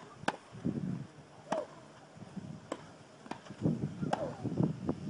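Tennis balls struck by rackets in a practice rally: a series of sharp pocks about a second apart.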